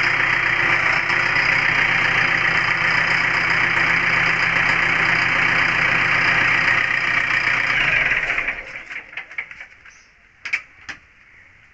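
Backhoe loader's diesel engine idling steadily, then dying away about eight seconds in. A couple of light knocks follow near the end.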